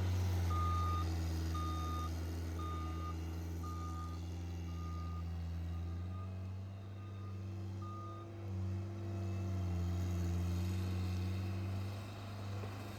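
John Deere 323D tracked skid steer's diesel engine running, with its reverse alarm beeping about twice a second. The beeps fade and stop about eight seconds in, while the engine note shifts slightly.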